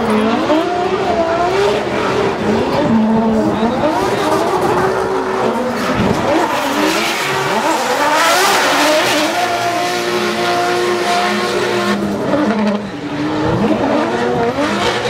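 Two drift cars sliding in tandem, their engines revving up and down at high rpm over the squeal of spinning tyres. The tyre noise swells to its loudest about eight seconds in, as the lead car slides past close by.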